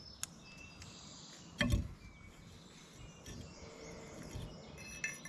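Quiet hand work on a new wheel bearing fitted to an axle shaft, its grease being wiped off with a rag: a faint click, a single knock about a second and a half in, and a few light metal clinks near the end, over faint high chirping in the background.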